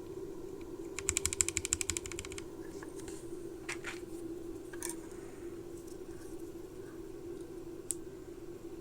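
Akko 3068B mechanical keyboard with ASA-profile keycaps: a quick run of about a dozen keystrokes about a second in, then a few single key clicks spaced out. A steady low hum sits underneath.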